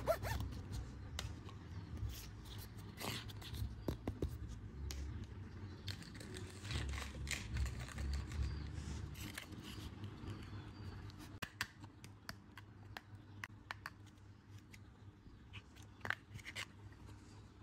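Plastic toy kitchen pieces being handled and set down on a cloth-covered table: scattered light clicks, taps and scrapes of hard plastic, over a low background hum.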